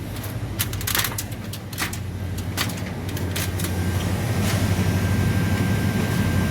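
Clanks and knocks of someone climbing a ladder, several sharp ones in the first few seconds. Under them runs a steady low machinery hum that grows louder in the second half.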